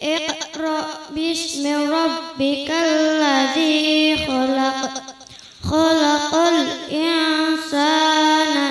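A young girl's voice reciting the Qur'an in melodic tilawah style through a microphone and sound system: long drawn-out notes with ornamented turns in pitch, broken by short pauses for breath.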